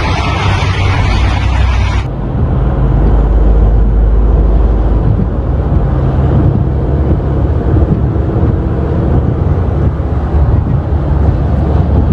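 Alfa Romeo FNM truck's diesel engine running steadily, a loud low rumble. About two seconds in, the hiss above it drops away abruptly while the engine sound carries on.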